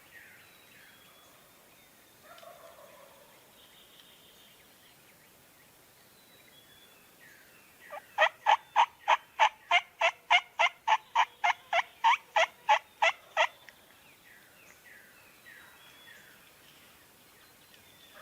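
A long, loud series of turkey yelps, about eighteen evenly spaced notes at roughly three a second, starting about eight seconds in and lasting some five seconds. Fainter turkey calls can be heard in the distance before and after.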